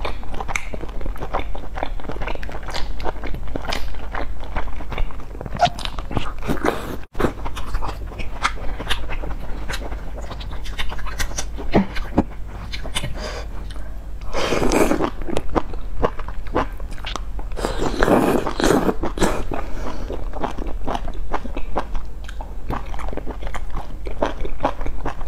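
A person chewing, with wet mouth clicks, close to the microphone while eating food from a spicy broth. There are two louder slurps, one about halfway through and another a few seconds later.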